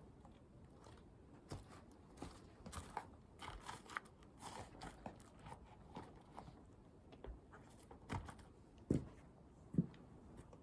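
Scattered scuffs, crunches and taps of a climber's shoes and hands on the granite of a boulder problem, with two dull thumps near the end.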